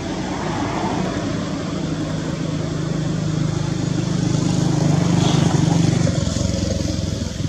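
A motor vehicle's engine hums steadily, growing louder for several seconds and then easing off near the end, as of a vehicle passing by.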